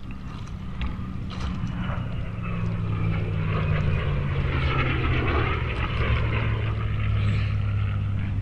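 USAF Thunderbirds F-16 fighter jets approaching in formation, the jet noise growing steadily louder, with a low drone that slowly drops in pitch under a rushing hiss.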